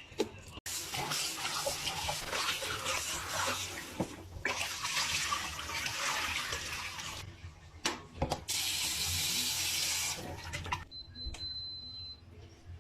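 Water running from a kitchen tap into a sink, in spells with a few knocks between them. A steady high-pitched beep lasts about a second near the end.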